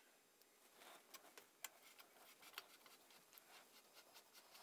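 Near silence, with faint, irregular ticks and clicks of a small screwdriver turning small screws into a metal frame.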